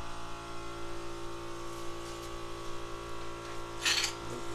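Steady hum with one short hiss of a gravity-feed paint spray gun a little under four seconds in.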